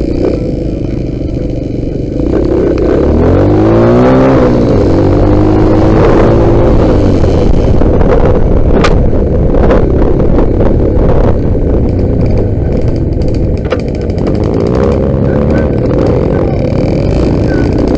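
Dirt bike engine running loudly, its pitch rising as it accelerates about two seconds in, then holding at a fairly steady pace.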